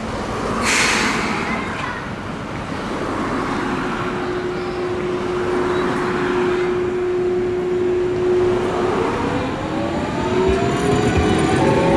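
Electric tram on street track with traffic noise: a short hiss about a second in, a steady whine through the middle, then several tones rising together in pitch near the end as the traction motors speed up.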